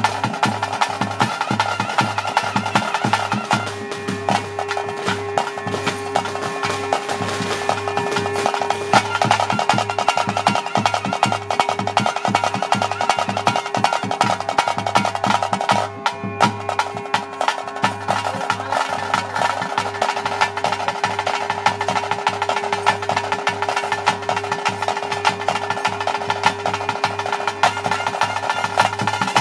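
Fast, continuous drumming from a traditional ritual percussion ensemble, with a steady held tone sounding over it for most of the stretch. The playing breaks off for a moment about halfway through.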